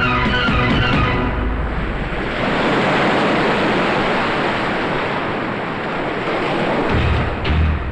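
Heavy sea surf: waves crashing and breaking in a continuous wash of noise. Background film music fades out about a second in, and low drum beats come in near the end.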